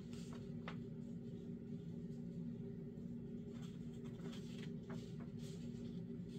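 Paper pages of a sketchbook rustling and brushing as a page is turned by hand, with a few soft rustles in the second half and the fullest one about five and a half seconds in, over a steady low background hum.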